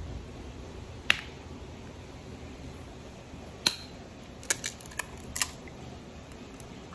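A single sharp tap about a second in, then another tap and a quick run of small crisp cracks: a raw egg's shell being cracked against a glass bowl and broken open.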